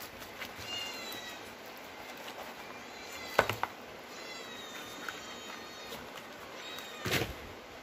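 Domestic cats meowing, thin, high meows now and then. A couple of sharp clicks come about three and a half seconds in, and a louder knock near the end.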